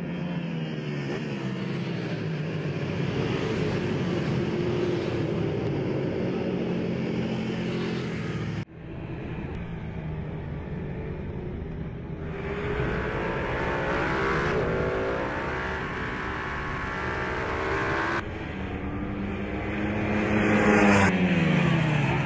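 Ducati racing motorcycles at full throttle, engines climbing in pitch through the gears as the pack pulls away, the sound cut abruptly twice. Near the end one bike passes close and is the loudest, its pitch rising and then dropping as it goes by.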